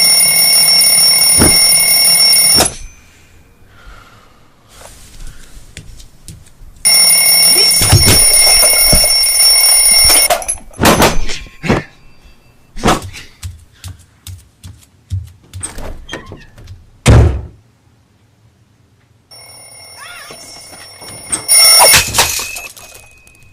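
A loud alarm bell ringing in bursts of a few seconds that cut off abruptly. Between the bursts come a run of sharp knocks and thuds, one of them much louder. Near the end a quieter ring starts up and swells into a loud burst.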